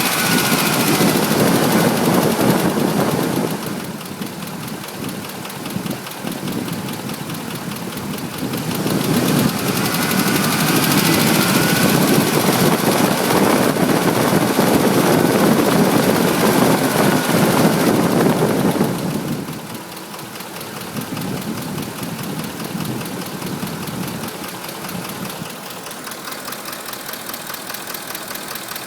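Ford 5.4-litre Triton V8 of a 2005 F-150 running with a tapping knock that is present at all rpm, rising in speed twice and dropping back to idle between and near the end. The owner suspects the cam phasers; dealers are split between cam phasers and other causes.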